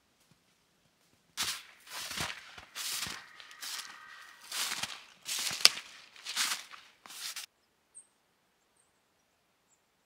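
Boots crunching through snow on the forest floor: about eight footsteps over six seconds, then the walking stops. A few faint high chirps follow.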